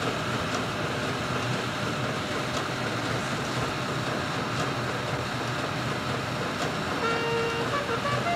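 Steady rushing noise with a low hum from a warship under way, and a steady tone with overtones joining about seven seconds in.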